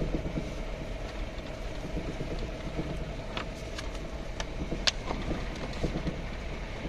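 Vehicle engine running steadily as it drives slowly, heard from inside the cabin, with a few sharp clicks and rattles. The loudest click comes about five seconds in.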